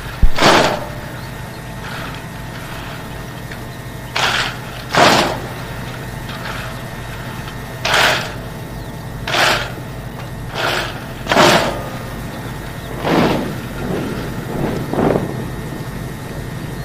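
Massed drill recruits stamping their boots and slapping their shovels in unison during a silent drill with no words of command. About eleven short crashing beats come at uneven gaps of roughly a second or more, the loudest just after the start, over a steady low rumble.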